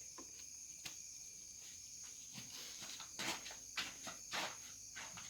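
A few soft clicks and scrapes of handling over a faint, steady high-pitched electronic whine, with the blender motor stopped.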